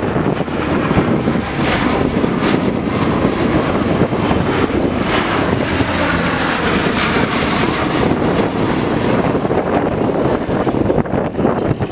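Lockheed C-130 Hercules four-engine turboprop transports flying low overhead: a loud, steady drone of engines and propellers with no break.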